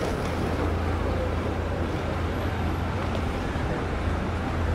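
Steady low rumble under a constant hiss of background noise.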